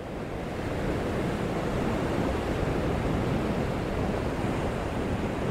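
Sea surf washing onto a sandy shore: a steady rush of noise that swells during the first second, then holds.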